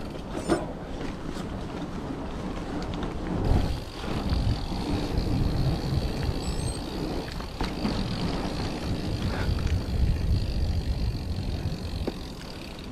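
Mountain bike rolling fast over a gravel and dirt trail: a continuous rush of tyre noise and rattle, with a few sharp knocks from bumps. Wind buffeting the microphone makes a heavy rumble that grows stronger about three and a half seconds in.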